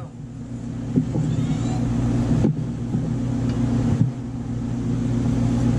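Steady low machine hum, with a few soft knocks about one, two and a half and four seconds in as pizza dough is floured and handled.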